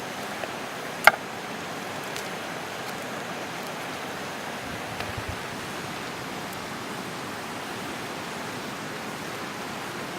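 River water rushing steadily, with a single sharp click about a second in.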